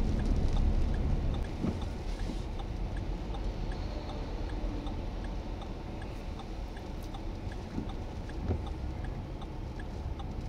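A steady low rumble of strong storm wind, easing slightly after about a second and a half, with faint even ticks about every three-quarters of a second.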